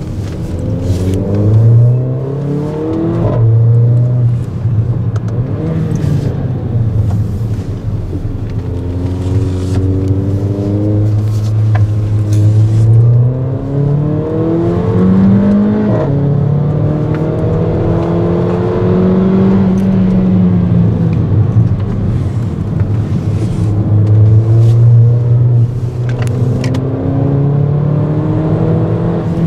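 Turbocharged four-cylinder engine of a Mercedes GLA 45 AMG heard from inside the cabin under hard driving: it climbs in pitch through the revs again and again, dropping back at each gear change or lift, then pulls up again.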